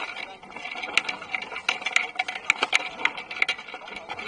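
Sailing dinghy moving fast through choppy water: a steady rush and splash of water along the hull, with irregular sharp ticks and knocks throughout.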